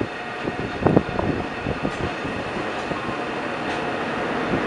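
Class 22E electric locomotives hauling an empty ore train pass close by, running with a steady noise and several heavy knocks, the loudest about a second in.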